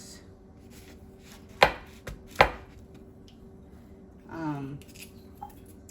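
Two sharp knife chops on a cutting board, about three-quarters of a second apart.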